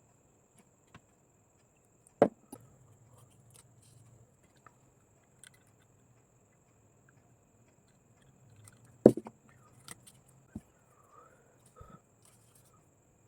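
Paper being handled and worked on a table: faint scattered rustles and ticks, with two loud sharp clicks, about two seconds in and about nine seconds in.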